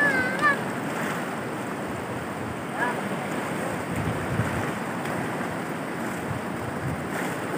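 Fast, swollen floodwater of a river rushing steadily.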